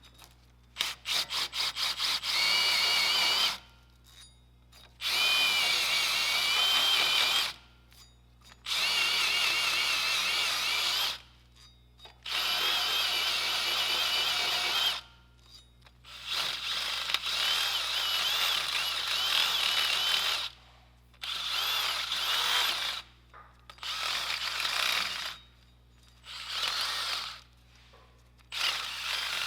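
Power drill spinning a brush attachment against the wheel hub surface to clean it, run in about ten bursts of a few seconds each with short pauses between. It opens with a few quick trigger blips.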